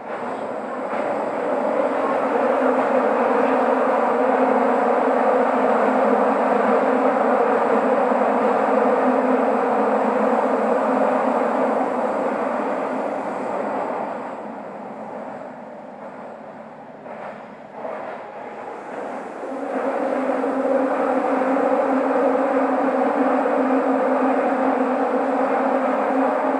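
Running noise of a Toei 12-000 series linear-motor subway train in its tunnel: a steady, loud noise of wheels and drive that eases off for about five seconds around the middle, then builds back up.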